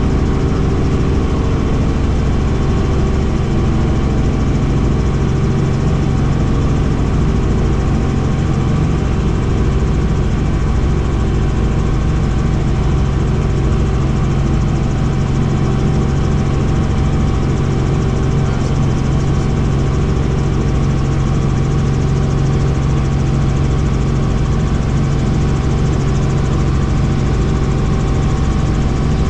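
Helicopter engine and rotor running steadily: a loud, unchanging drone with a strong low hum and a few steady whining tones above it.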